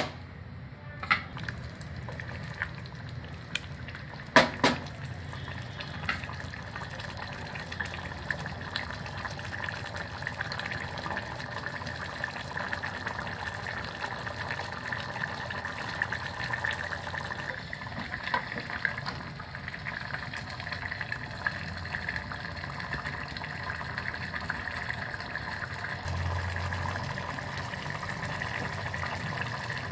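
Prawn gravy of tomato and yogurt bubbling at a steady boil in a steel pot, a constant low burble of popping bubbles while the prawns cook through. A few sharp knocks sound in the first few seconds, the loudest about four and a half seconds in.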